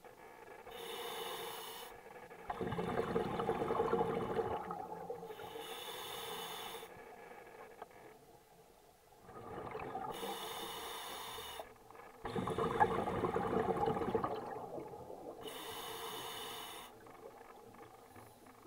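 Scuba diver breathing through a regulator underwater: hissing inhalations alternating with louder bubbling exhalations, two full breaths.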